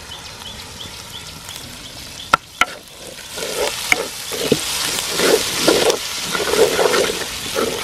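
Sliced onions frying and sizzling in oil in a clay chatti, stirred with a wooden spatula: two sharp knocks a little over two seconds in, then from about three seconds in repeated scraping strokes over a steady sizzle, louder than before. The onions are softening in the hot oil.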